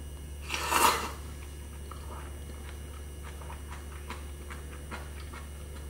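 A short, loud slurp of ramyun noodles about half a second in, then soft chewing with small wet clicks. A steady low hum from an air fryer runs underneath.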